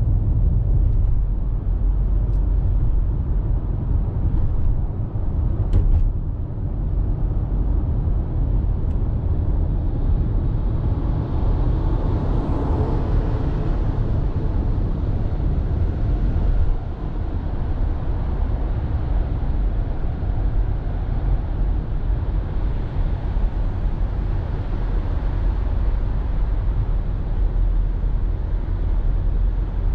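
Steady road and tyre noise of a Nissan Serena minivan driving along an expressway, mostly a low rumble. It swells for a few seconds around the middle, then settles back.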